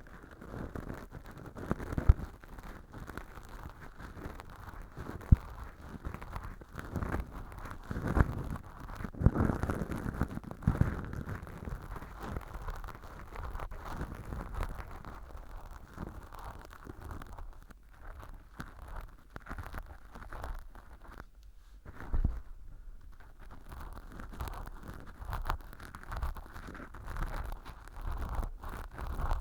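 Ear pick scraping dry fake earwax inside a model ear canal lined with fluffy velcro. It is a continuous dry scratching and rustling, with a couple of sharp clicks in the first few seconds.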